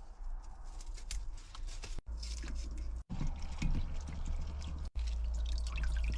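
Light clicking and clattering of cooking preparation, with a steady low rumble underneath from about two seconds in; the sound cuts off abruptly and restarts a few times.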